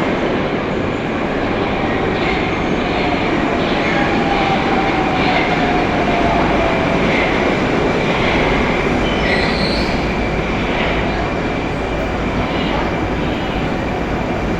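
Moscow Metro 'Oka' (81-760/761) train running through the station with a steady rumble and a high steady tone. A fainter whine falls slightly in pitch partway through, and there are short high wheel squeals later on.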